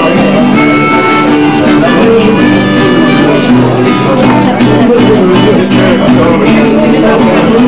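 Irish folk music played on acoustic guitar with a melody instrument carrying the tune, at a steady, loud level.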